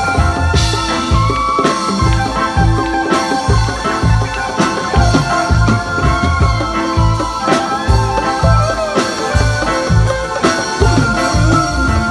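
Reggae band playing, with bass notes on a steady beat about one and a half a second and held notes above, with no singing.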